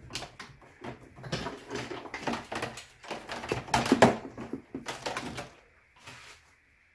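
Irregular clicking, rattling and knocking of hands-on work with plastic parts and wiring on an ATV, in quick clusters that stop about five and a half seconds in.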